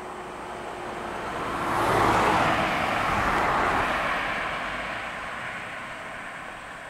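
A box truck drives slowly past at close range, its engine and tyre noise swelling to a peak a couple of seconds in and then fading away.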